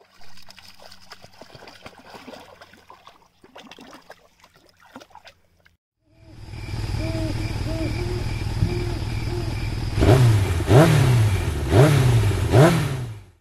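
Faint outdoor sound for a few seconds. Then a logo sound effect of an engine running steadily and revved up and down four times near the end, each rev rising and falling in pitch, before it cuts off.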